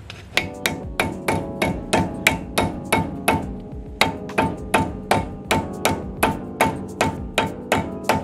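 Dust cap being tapped onto the front wheel hub of a 1989 Dodge D100: a steady run of about three hammer strikes a second on metal, each with a short metallic ring.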